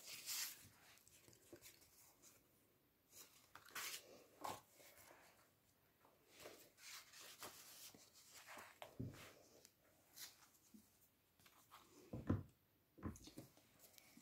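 Faint rustling and scraping of paper and card as scrapbook pages and a tucked-in letter are handled, with a few soft thumps of the thick pages against the book, the loudest near the end.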